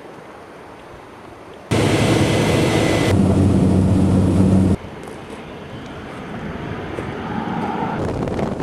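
Floatplane engine and propeller droning loud and steady from inside the cabin, with a strong low hum; it cuts in abruptly about two seconds in and cuts off abruptly just before the middle. Before and after it, a quieter steady rush of wind and water that slowly grows louder toward the end.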